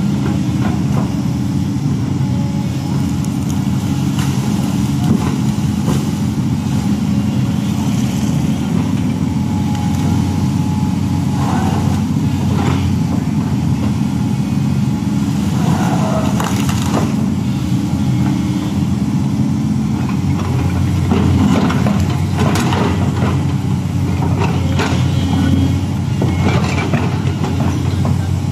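LiuGong crawler excavator's diesel engine running steadily under load while it digs, with scattered clanks and scrapes from the bucket working soil and brush.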